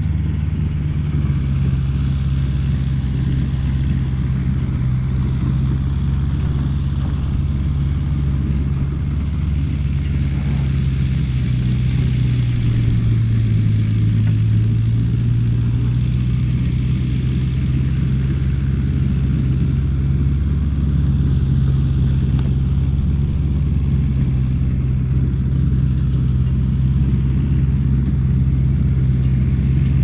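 Tractor engine running steadily with a low, even note that dips slightly about halfway through.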